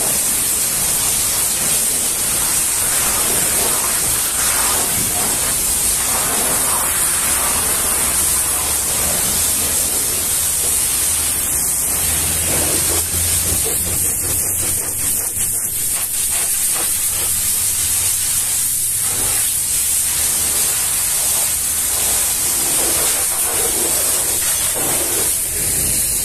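Steady, loud hiss of a pressure-washer water jet spraying a truck cab. A low hum comes in briefly around the middle.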